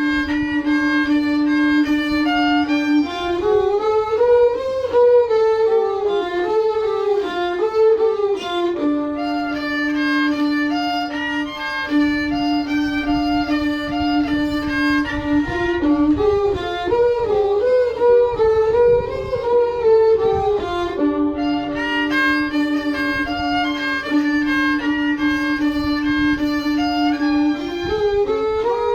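Bowed fiddle playing a slow melody: a long held note alternates with ornamented phrases that slide up and down, the held note returning about every five to six seconds.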